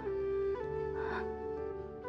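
Slow background score of long held flute-like notes over a soft sustained accompaniment, the melody moving to a new note about half a second in.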